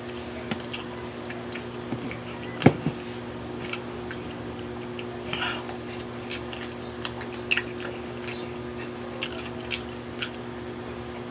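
A person chewing and biting into saucy pork pata adobo, with wet squishy mouth sounds and scattered short smacks and clicks. The loudest is a sharp click about two and a half seconds in. A steady low hum runs underneath.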